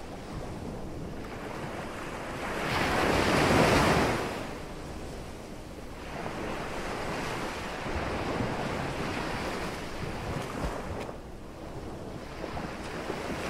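Ocean surf and wind: waves washing in, with one louder surge that builds and falls away about three to four seconds in, then a steadier wash.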